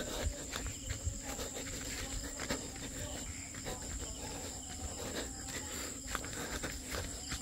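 Steady high chirring of crickets at night, with irregular soft knocks of footsteps on grass and the phone being handled.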